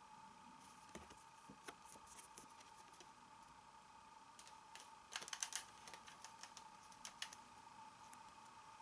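Faint clicks and light rattling of toy cards being handled and fanned out in the hand, with a short run of sharper clicks about five seconds in, over a faint steady tone.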